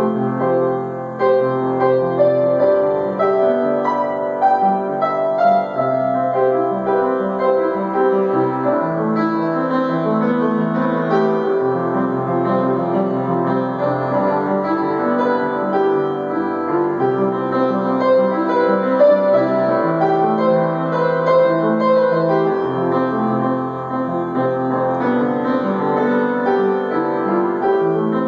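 Solo piano playing an improvised piece: held low bass notes change every couple of seconds under a flowing melody in the middle register.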